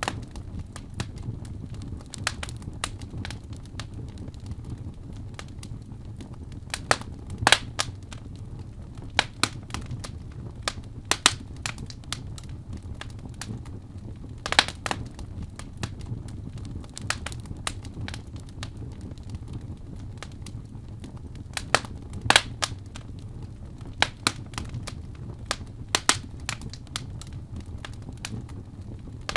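Wood fire burning in a fireplace: a steady low rumble of flames with irregular crackles and sharp pops from the burning logs, a few of them louder.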